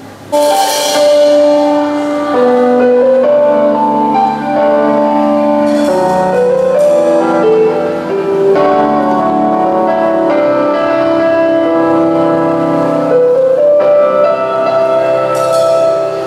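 Live band playing a slow song intro led by sustained keyboard chords that change every second or two, starting abruptly just after the start.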